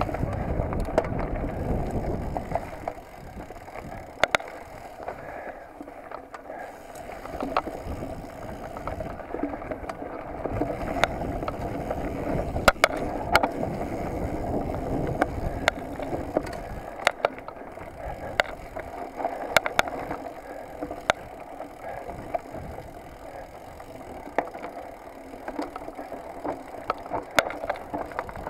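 Mountain bike riding fast down a dirt singletrack: tyres rolling over dirt with many sharp clacks and rattles from the bike. Wind buffets the microphone for the first couple of seconds.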